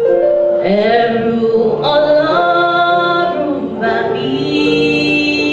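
Church choir singing, several voices together holding long notes and sliding between pitches.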